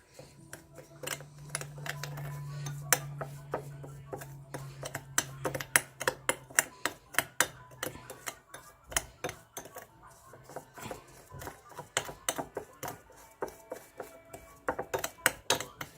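A spoon stirring a sugar and coffee face scrub in a small bowl, clinking and scraping against the sides in quick irregular clicks. A low steady hum runs under the first several seconds.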